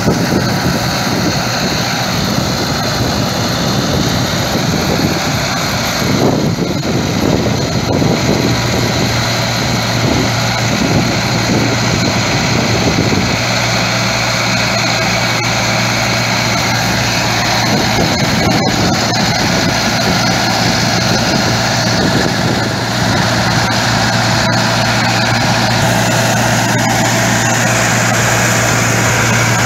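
Massey Ferguson tractor's diesel engine running under load, driving a tractor-drawn straw reaper that cuts wheat stubble and blows the chopped straw into a trolley. A steady low hum comes in about nine seconds in.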